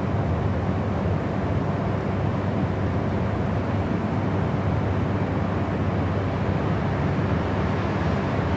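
Continuous white-noise track: an even, unchanging rushing hiss, deeper and heavier in the low end than high.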